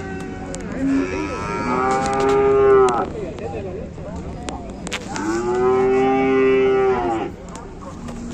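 Cattle mooing: two long moos, each about two seconds, the first about a second in and the second about five seconds in, with a few sharp clicks and knocks between them.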